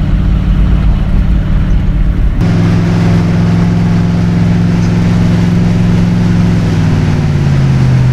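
Ford 4.6-litre V8 in a 1961 F100 pickup running steadily at cruising speed, heard from inside the cab, its pitch easing down slightly near the end.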